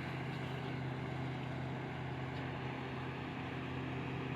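Steady low hum of a running motor, even and unchanging.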